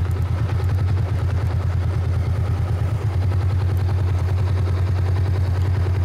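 Cruiser motorcycle engine running at low revs as the bike rides slowly, with a steady, fast, even low pulse.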